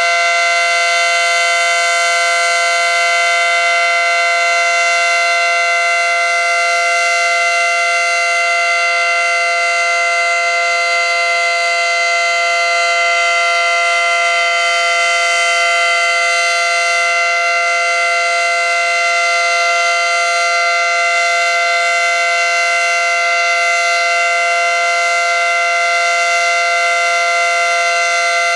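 ACA Screamer dual-tone (9/12-port) outdoor warning siren sounding the steady Alert signal. It holds a loud two-note chord at a constant pitch, without rising or falling.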